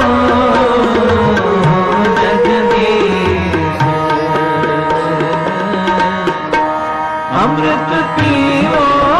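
Indian devotional-style music led by tabla drumming, with a held, slowly moving melody line over the beat.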